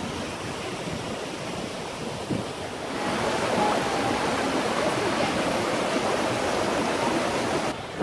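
Creek water rushing down small cascades between boulders: a steady rush that grows louder about three seconds in.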